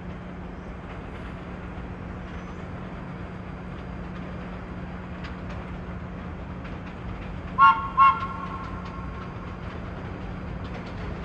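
Subway train approaching through the station with a steady rumble and hum, then two short horn blasts a fraction of a second apart, about eight seconds in, which are the loudest sound.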